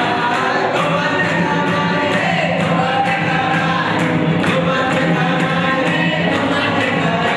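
A group of voices singing together in chorus, with a steady beat of about two to three ticks a second underneath.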